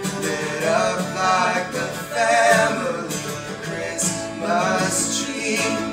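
Acoustic guitar strumming together with a second small plucked stringed instrument, while male voices sing long held notes without clear words.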